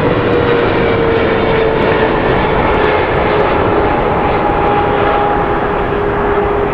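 Boeing 777's jet engines, a loud steady roar on landing with a whining tone that slowly falls in pitch.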